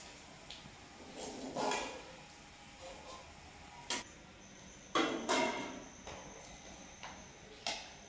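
A metal slotted skimmer knocking and scraping against an aluminium cooking pot, its lid and a plate while fried okra is dished out: about five separate clinks and clanks.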